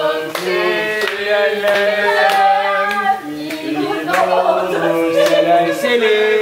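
A small group singing a birthday song together while clapping along in a steady beat.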